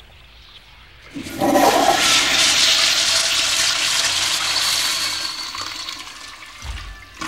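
Toilet flushing: a loud rush of water starts about a second in and tapers away over several seconds, with a short low thud near the end.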